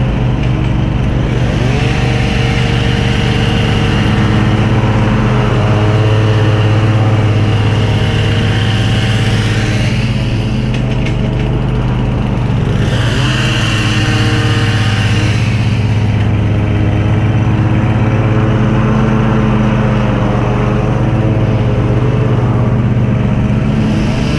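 A small petrol engine of lawn-care equipment running steadily, its pitch rising briefly about two seconds in and again around thirteen seconds, with a rushing hiss that swells and fades twice over it.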